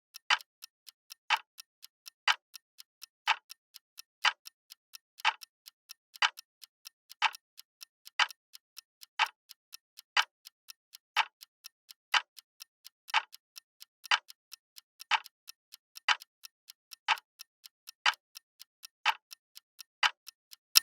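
Ticking-clock sound effect of a countdown timer: one loud tick each second, with fainter ticks in between.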